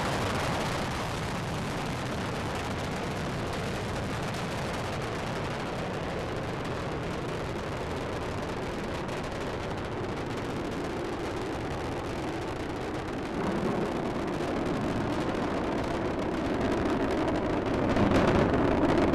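Space Shuttle Discovery's rocket engines running during ascent: a steady, even rumbling noise that grows louder about 13 seconds in and again near the end.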